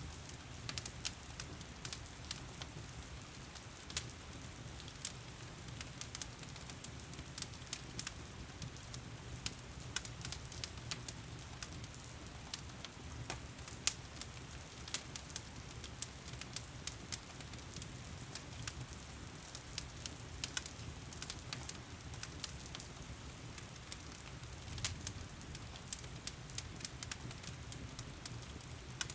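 Wood fire in a stone fireplace crackling, with frequent irregular pops and snaps, over the steady hiss of heavy rain.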